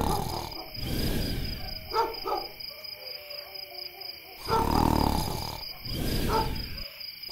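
A large dog barking deep, drawn-out barks, about five in a row with short pauses between, over a steady high insect-like trill.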